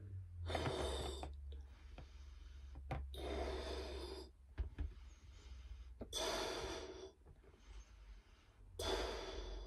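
A woman blowing up a tight latex party balloon by mouth: four loud breaths about three seconds apart as she fills it in puffs.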